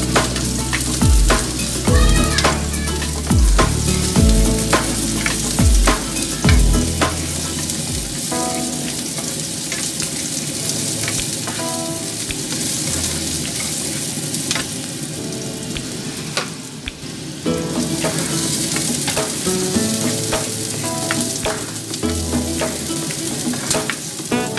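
Chopped red onion sizzling in hot oil in a nonstick frying pan, stirred with a spatula, with the spatula clicking against the pan. A background beat with deep bass thumps about once a second runs under it for the first third.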